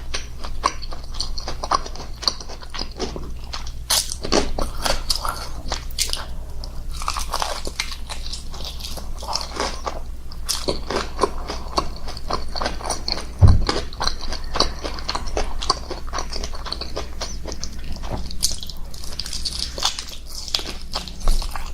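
Close-miked eating: continuous biting and chewing with crunchy, wet clicks. A single low thump comes about halfway through, over a steady low hum.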